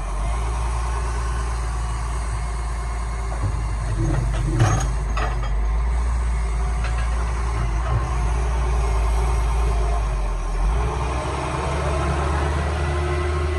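Excavator's diesel engine running steadily, with a few sharp knocks about a third of the way in and another about two-thirds through; the engine note shifts near the end.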